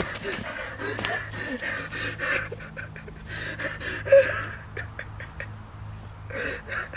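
A young man panting heavily and raggedly, out of breath, with a sharper gasp about four seconds in. A steady low drone hums underneath.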